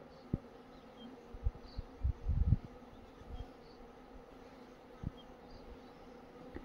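Asian honeybees (Apis cerana) humming steadily from an open hive, with a few low knocks and bumps of wooden frames being pried and shifted, the loudest cluster about two seconds in.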